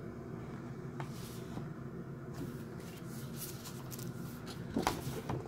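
Large glossy art prints being handled: soft paper rustling and sliding over a steady low hum, with a brief louder noise near the end.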